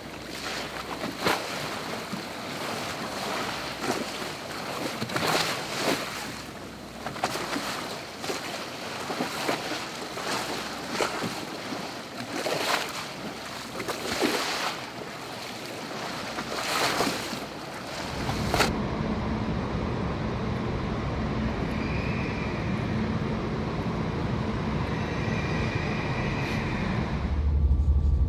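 Small waves lapping and splashing at an uneven pace over a steady hiss of water. About two-thirds of the way through this cuts off suddenly, giving way to the steady low rumble of a coach bus heard from inside the cabin, which grows louder near the end.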